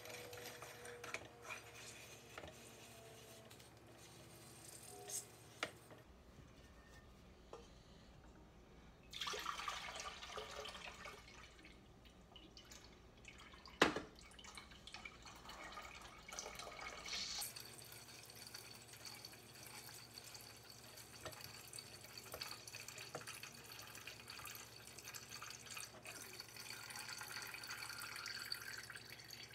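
Elderberry juice dripping and trickling from a fruit press into a pot, with light clinks of stainless-steel pots and press parts and one sharp metal clank about halfway through.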